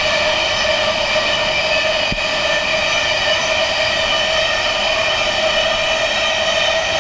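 Iron-ore hopper wagons rolling past close by, with a steady high-pitched metallic wheel squeal of several tones held throughout. A single short knock about two seconds in.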